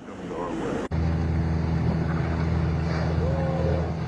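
Boat engine running at a steady low hum, cutting in abruptly about a second in.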